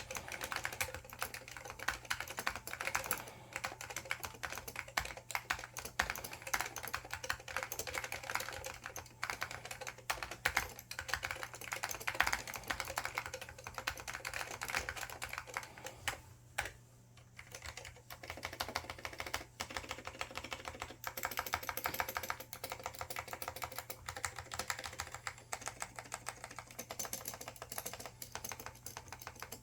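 Continuous fast typing on an IBM 5556-003 keyboard with Alps SKCL Green switches and doubleshot ABS keycaps, dense rapid key strikes with one brief pause a little past halfway.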